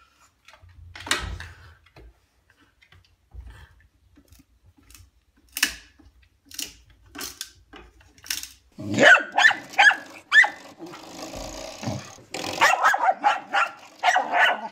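French bulldog barking and growling in quick runs from about nine seconds in. Before that, scattered light knocks, as of a long stick bumping a door frame and wooden floor.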